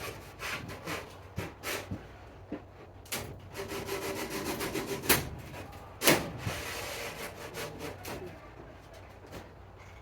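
Greenhouse frame parts scraping and rubbing as they are worked into place, with scattered clicks and two sharper knocks about five and six seconds in.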